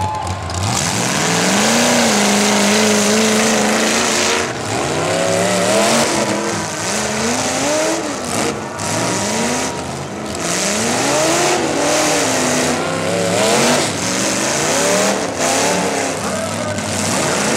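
Demolition derby car engines revving hard, the pitch climbing and dropping over and over as the cars push and ram each other on the dirt.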